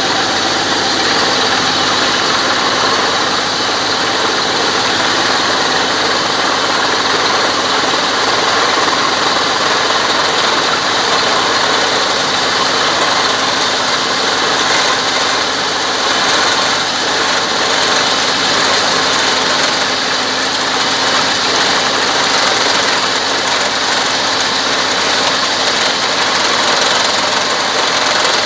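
Well-drilling rig's engine running steadily, with water gushing out of the top of a newly drilled well's casing and splashing down into mud.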